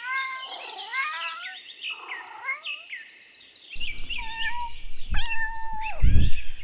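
Domestic cat meowing over and over. Short calls crowd together in the first few seconds, and longer drawn-out meows come near the end with a low rumble beneath them.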